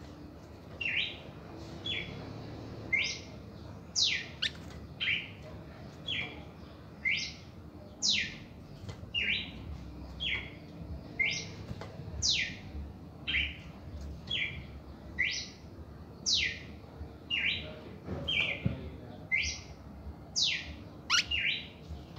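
Red-crested cardinal singing: a steady series of short, clear whistled notes, about one a second, with longer, higher notes alternating with shorter, lower ones.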